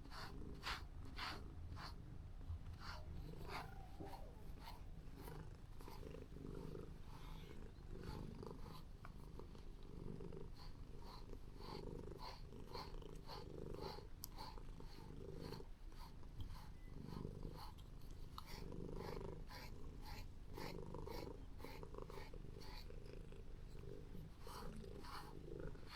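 Calico cat purring steadily, the purr swelling and easing with each breath: a contented cat. Light regular ticks, about two or three a second, sound over it.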